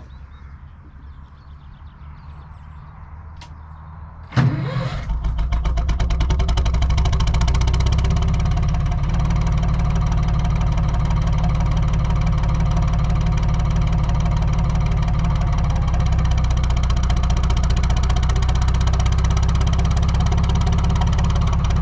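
Lister HW3 three-cylinder narrowboat diesel engine starting from cold: a quiet low rumble for the first four seconds, then it catches suddenly and, within a couple of seconds, settles into a steady, even run.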